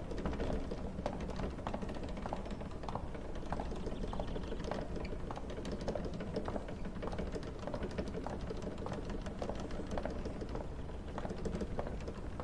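Footsteps of hard-soled dress shoes on a polished hard floor, about two steps a second, over a steady low rumble.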